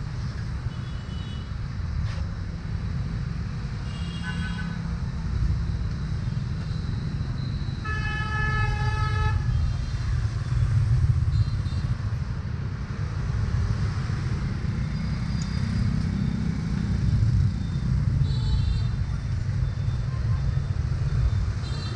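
Street traffic of motorbikes and scooters, a steady low engine rumble, with a vehicle horn sounding for about a second and a half about eight seconds in, and a few shorter high beeps at other moments.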